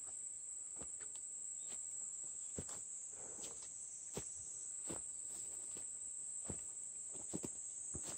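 Insects chirring steadily at a high pitch, with the footsteps of someone walking through tall grass and undergrowth, a little more than one step a second.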